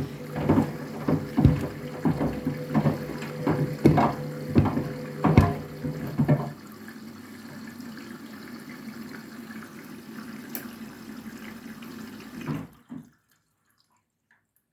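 Candy washing machine on its trainers cycle: the drum turns with a steady motor hum while the trainers thud against it about twice a second, with water running in. About six and a half seconds in the drum stops and the thuds end, leaving only the water sound, which cuts off suddenly near the end.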